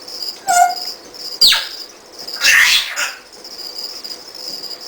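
African grey parrot calling: a short pitched call, then a falling whistle about a second and a half in, then a harsh squawk about a second later. Feeder crickets chirp steadily underneath.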